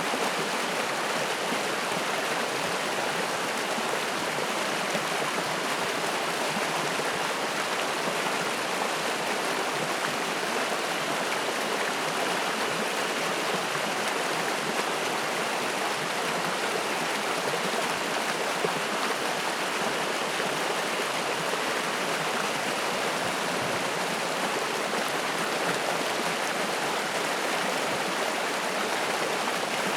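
Spring-fed mountain stream flowing and splashing in a steady, unbroken rush of water.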